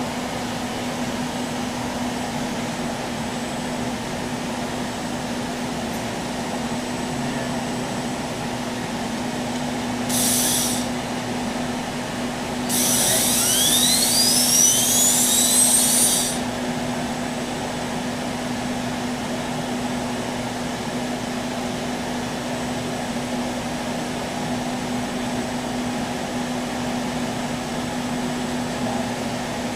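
Moore 500 Series CPWZ CNC jig grinder running under power with a steady hum. About ten seconds in there is a short hiss, and from about thirteen to sixteen seconds a louder hiss with a whine that rises steeply in pitch.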